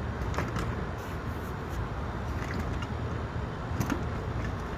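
A few sharp clicks and knocks of the AC unit's metal cover being handled as it is opened, a cluster about half a second in and another near the end. Under them runs a steady low rumble of outdoor background noise.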